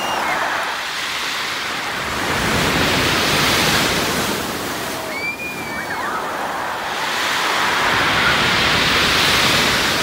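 Light surf breaking and washing up a pebble beach. The wash swells twice, about three seconds in and again near the end.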